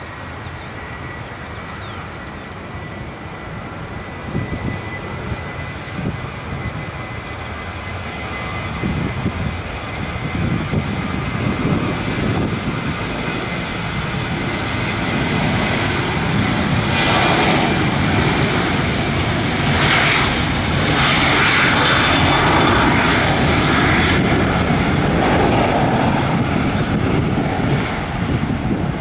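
Twin CFM56-7B turbofan engines of a Boeing 737-800 on its takeoff run: a steady whine over jet noise that grows louder through the first half and then holds loud.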